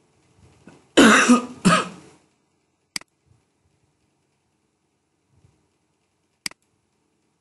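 A person coughs twice in quick succession about a second in, then two sharp single clicks follow, about three and a half seconds apart, from a computer mouse switching tabs.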